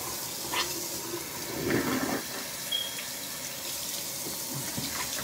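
Water running steadily, as from a tap, with a few soft handling noises.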